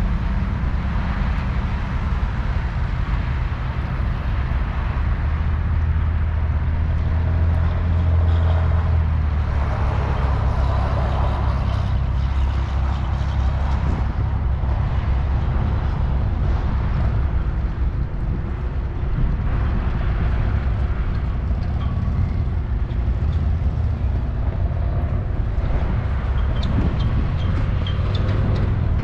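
Road vehicle driving along: steady engine drone with road and wind noise.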